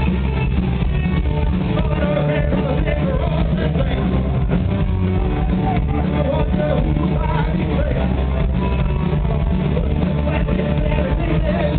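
Punk rock band playing live: distorted electric guitar, bass and drums at a steady loud level, with shouted vocals over the top.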